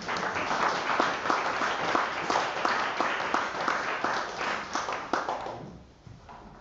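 Audience applauding: many hands clapping, dying away about five and a half seconds in.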